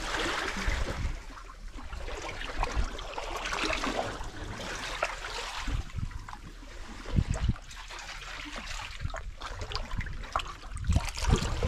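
Water trickling and splashing, with a few low thumps about seven seconds in and near the end.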